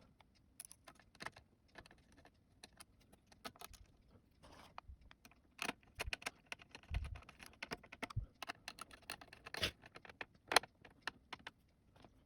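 Hands handling an M.2 SSD and small PC parts: irregular small clicks, taps and light clinks, with a couple of soft low thumps around the middle.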